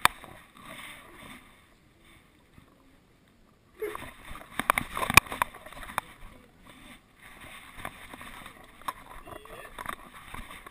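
Rubbing, rustling and knocking from a GoPro camera strapped to a moving dog, with a burst of sharp clicks and knocks about four to six seconds in and scratchy rustling after that.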